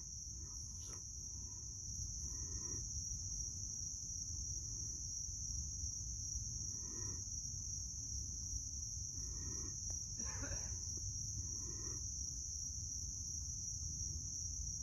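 Steady high-pitched drone of insects, with a few faint short calls at intervals, which the listeners take for a possible quail.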